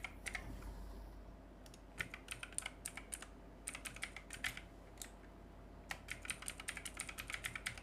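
Typing on a computer keyboard: quick runs of keystrokes in several bursts with short pauses between, as a password is entered.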